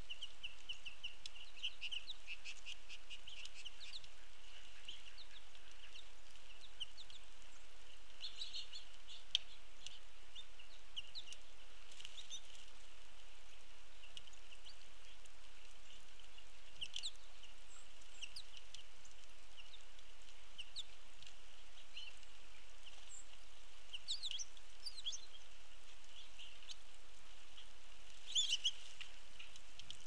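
Small songbirds at the feeders giving short high chirps and twitters on and off, in brief clusters, over a steady background hiss.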